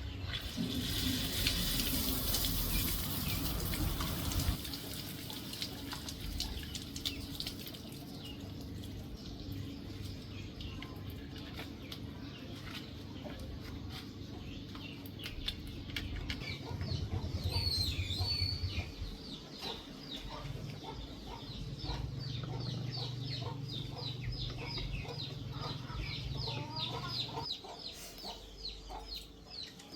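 Chickens clucking in a repeated run of short calls, with water running for the first few seconds and a low steady hum underneath.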